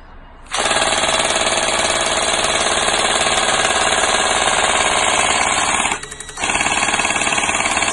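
G&G GMG42 airsoft electric gun, an MG42 replica AEG, firing on full auto: its electric motor and gearbox cycle very rapidly, shooting BBs. A long burst of about five seconds, a short break near six seconds in, then a second burst.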